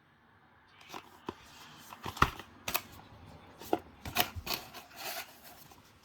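Product packaging handled by hand: a string of rustles, sharp clicks and taps, the loudest about two seconds in.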